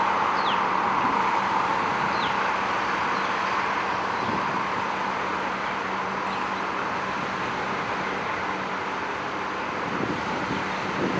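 Steady outdoor rush of distant road traffic and wind, with a low steady hum under it and two faint short falling chirps in the first few seconds.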